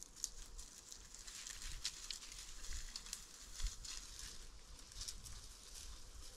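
Dry leaves and brush crackling and rustling as they are trodden through, with scattered sharper snaps of twigs.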